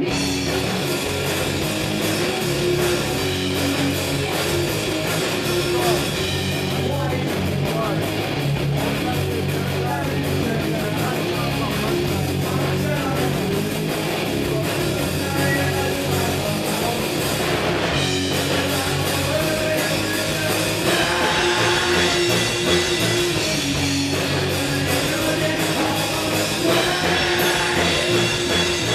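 A rock band playing live with electric guitar, bass guitar and a drum kit, the full band kicking in right at the start and playing on steadily.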